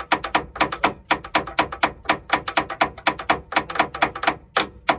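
Rapid hammer blows on steel, about five a second, struck to drive a stuck inner tie rod out of the steering.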